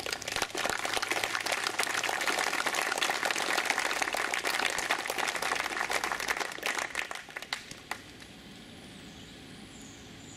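Crowd applauding outdoors for about seven seconds, the clapping thinning into a few scattered claps and stopping about eight seconds in.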